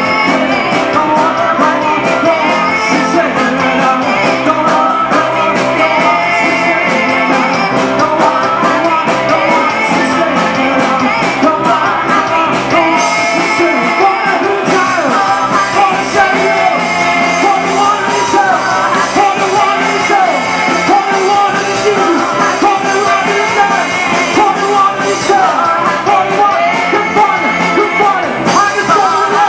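Live rock band playing a song: a man singing lead, with women singing backing vocals, over electric guitar, keyboard and drums.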